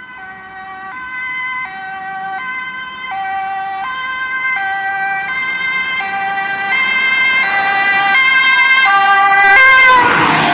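Dutch ambulance's two-tone siren alternating between a high and a low note, each held for under a second, growing steadily louder as it approaches. Near the end the ambulance passes close by with a rush of engine and tyre noise, and the siren's pitch drops as it goes past.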